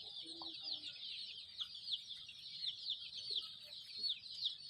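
A flock of Kadaknath chickens: a dense chorus of high, falling peeps with several calls a second throughout, and a couple of low clucks about half a second in.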